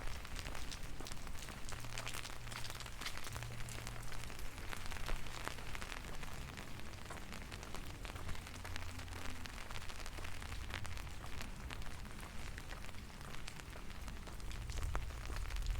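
Rain falling, with many small drops ticking close by over a low rumble.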